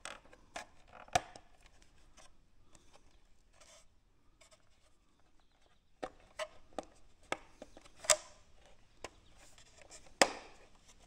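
Scattered sharp clicks and taps with faint rubbing: hands handling a small plastic RC crawler truck and its radio. The loudest clicks come about a second in and near the end.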